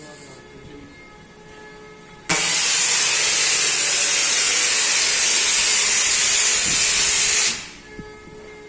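Loud, steady hiss of compressed air blowing in a workshop, starting abruptly and lasting about five seconds before cutting off.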